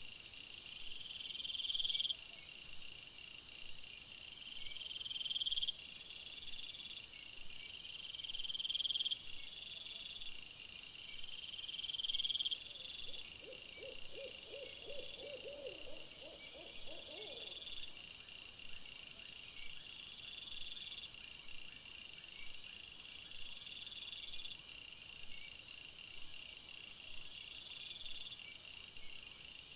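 Insects, crickets, chirping steadily in a high, pulsing chorus. Midway a short rapid series of low calls, about a dozen notes over four seconds, rises above it.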